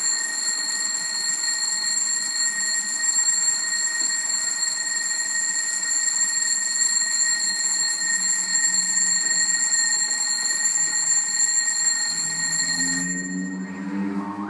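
Alarm clock going off with a loud, steady, shrill ring that starts suddenly. It stops near the end and gives way to a warbling, siren-like wail.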